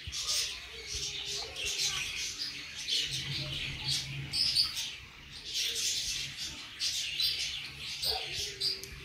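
Close-up chewing of a soft steamed chicken momo: irregular wet mouth and chewing sounds.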